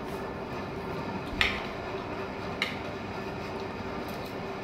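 Metal spoons clinking and scraping against ceramic plates of pasta: a sharp clink about a second and a half in, a softer one a second later and a few faint ticks near the end, over a steady faint background hum.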